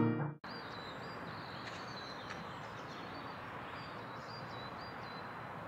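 Outdoor ambience: a steady background hiss with small birds chirping in short high calls scattered through it. The tail of the intro music cuts off about half a second in.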